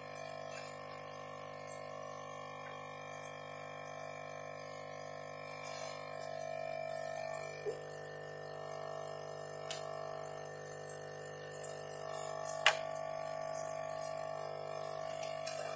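Quiet background music with steady held tones, over which a few sharp plastic clicks sound as the back cover is fitted onto the fingerprint scanner; the loudest click comes about three-quarters of the way through.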